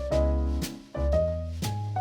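Background music: an upbeat jazzy tune with bass, keyboard-like chords and regular cymbal strokes.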